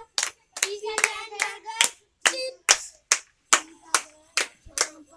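A group of children clapping in a steady rhythm, about two to three claps a second, with children's voices chanting along between the claps.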